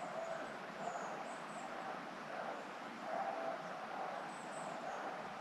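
Hunting dogs baying in short, repeated barks, faint and continuous: the sign that they are holding a wild boar at bay. A few high bird chirps come over it.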